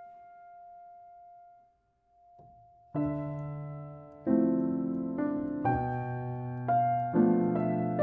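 Background piano music: a single held note fades almost to silence, then chords start about three seconds in and are struck roughly once a second.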